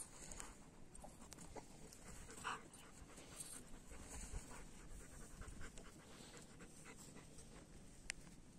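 Long-haired German shepherds panting faintly during play, in short irregular breaths.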